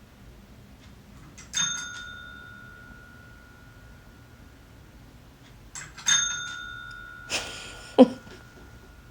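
A small bell is struck twice, about four and a half seconds apart, each strike ringing on with one clear tone. Near the end come a short rustle and a sharp knock.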